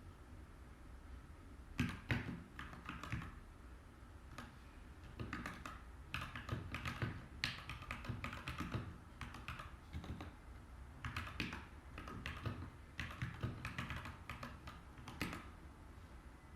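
Typing on a Montech MKey TKL mechanical keyboard with Gateron Pro G 2.0 brown switches: runs of rapid key clicks in bursts, with short pauses between them.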